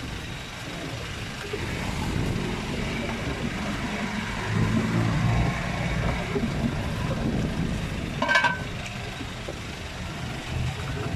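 Street traffic rumbling past, a steady low drone of motor vehicles that swells for a couple of seconds near the middle. A short sharp sound with a brief ring cuts through it about eight seconds in.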